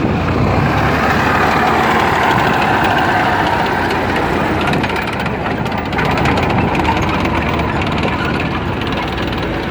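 Military half-track's engine running as it drives past, loudest in the first few seconds and easing off after about six.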